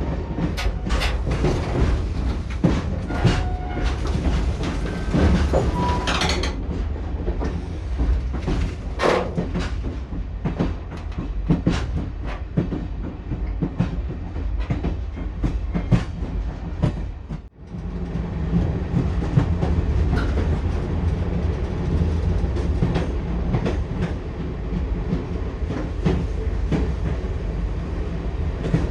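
Passenger train's wheels clattering over the rail joints with a steady low rumble, heard from inside the carriage. The sound drops out for a moment about two-thirds of the way through.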